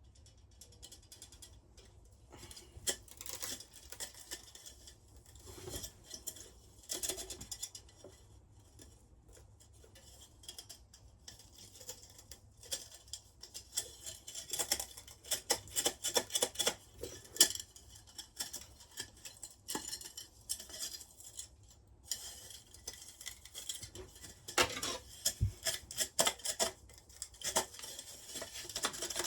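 Small clicks, clinks and scrapes of an electric melting furnace's heating element and its ceramic insulator rings being handled and worked loose. These come in scattered bursts that grow busier in the middle and again near the end.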